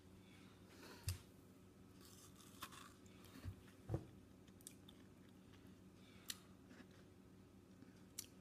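Faint mouth sounds of someone biting and chewing a frozen cube of beet sorbet: a handful of short crunches and smacks, the strongest about a second in and about four seconds in, over a low steady hum.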